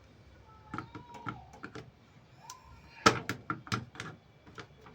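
Small sharp clicks and taps of plastic and metal parts being handled as the amplifier's volume knob is refitted and tightened onto the new potentiometer's shaft, a few scattered at first, then a denser burst of clicks about three seconds in.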